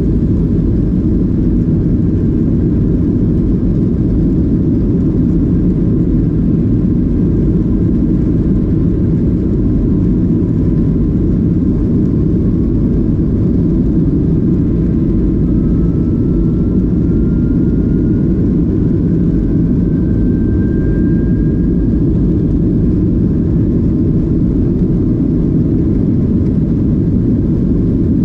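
Jet airliner engine and airflow noise heard from inside the passenger cabin of a Southwest Boeing 737: a loud, steady low rumble. Partway through, a faint thin whine slowly rises in pitch.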